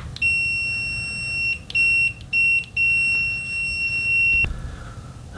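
BSIDE S30 multimeter's continuity beeper giving one steady high-pitched tone while the test leads are held shorted together. The tone cuts out briefly three times in the middle, where the contact breaks, and then stops suddenly. It is loud, measuring about 76 dBA on a sound level meter at full output volume.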